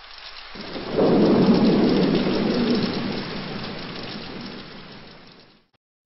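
Thunder-and-rain sound effect: a rumble with rain noise that swells about half a second in, is loudest around a second in, and fades away over the next few seconds.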